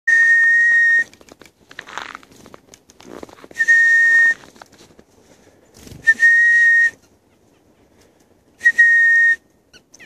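Four high, steady whistles on one unchanging pitch, each a little under a second long, about two and a half seconds apart, with faint rustling between them.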